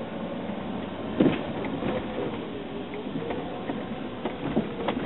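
Inside a car driving slowly: a steady low engine and road hum with a few short knocks and clicks, the loudest about a second in.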